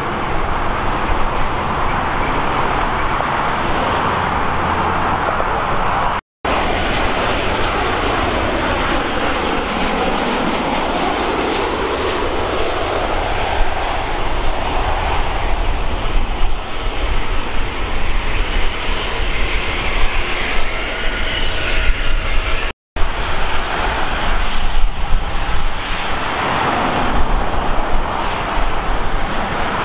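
Jet airliner engines passing close by, a loud steady rush whose tone sweeps slowly down and back up as the aircraft goes past. The sound drops out completely twice for an instant.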